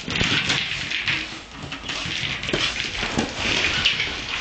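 Small dog playing with a treat-dispensing ball on the floor: a steady scuffling noise with scattered short knocks.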